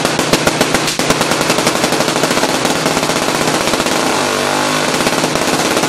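Solid-state (semiconductor) Tesla coil firing long arcs into the air: a loud, continuous rapid crackling buzz. The discharges are pulsed to sound tones, and the pitch steps through a few notes about four seconds in.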